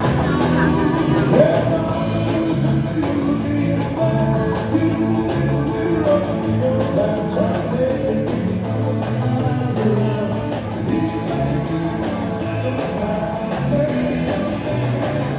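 Live band playing a song with a singer, drums, guitars and keyboard.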